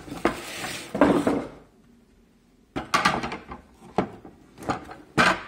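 Hard plastic drywall taping tool being handled out of its cardboard packaging. There is a rustle of cardboard and packing at first, then after a short pause a series of sharp plastic clicks and knocks as it is turned and handled.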